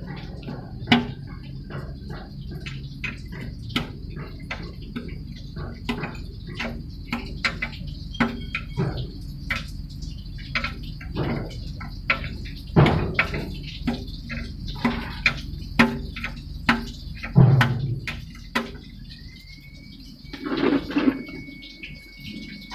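Irregular sharp clinks and knocks of tools on metal during engine work, over a low steady hum, with a thin steady high tone for a few seconds near the end.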